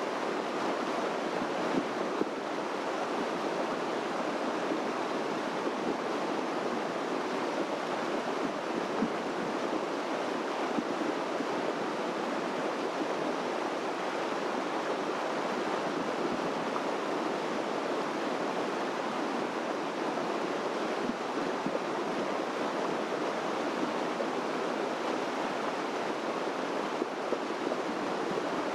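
Steady, unbroken rush of running water from a stream.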